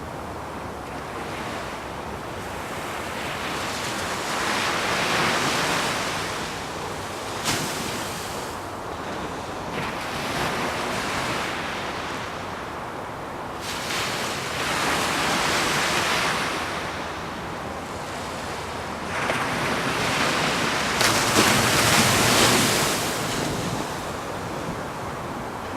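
Ocean surf: waves breaking and washing in, swelling four times and easing off between, with a sharp crack about seven seconds in.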